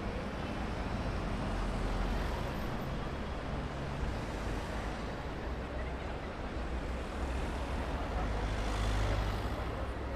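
Busy city street ambience: a steady rumble of motor traffic with low engine hum, and one vehicle passing louder about nine seconds in.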